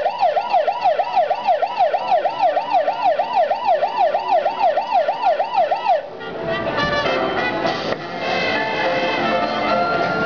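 A fast-warbling electronic siren sound effect from the slot-machine act's loudspeakers, rising and falling about three times a second, like a jackpot alarm. It cuts off about six seconds in and lively music takes over.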